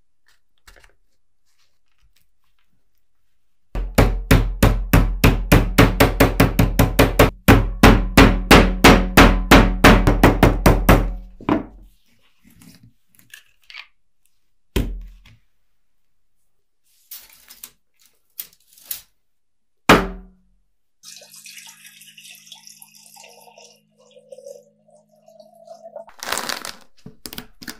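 A fast run of loud, sharp knocks, about four a second for some eight seconds, then two single thunks. Near the end, water is poured into a glass jar.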